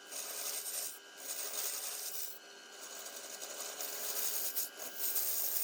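Wood turning on a lathe: a rasping, scraping hiss of a tool or abrasive against the spinning wood, in passes of a second or two with short breaks between them, over a faint steady whine.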